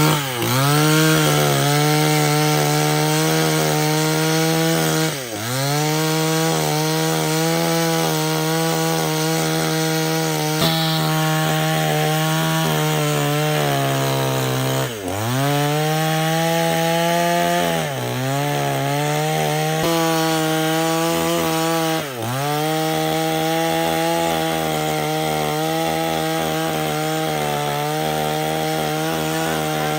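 Two-stroke chainsaw running at high revs while cutting wood. Its engine note dips sharply and recovers about four times as it takes load in the cut.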